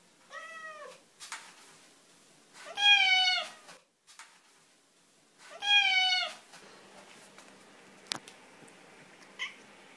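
Siamese cat meowing three times, long drawn-out calls, the middle one the loudest. A sharp click follows later.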